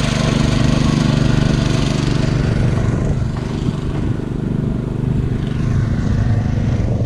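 Small engine of a Golden Horn walk-behind tiller-ridger running steadily under load as it works soil along the rows, a little quieter from about three seconds in.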